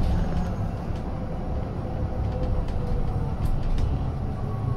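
Custom Denning Element battery-electric bus heard from inside the cabin while moving: a steady low rumble with a faint whine that slides a little in pitch, and a few light ticks.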